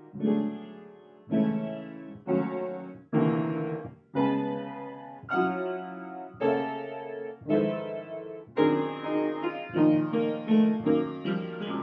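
Upright piano played with full chords struck about once a second, each ringing and fading before the next. Quicker notes fill in near the end.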